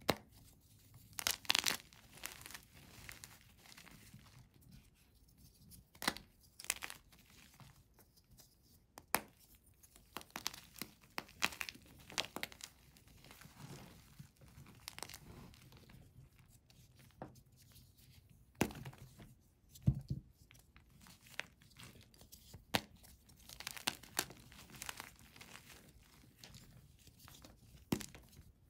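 Hands crushing and crumbling blocks of gym chalk and starch paste: irregular dry crunches and crackles with powdery crumbling between them.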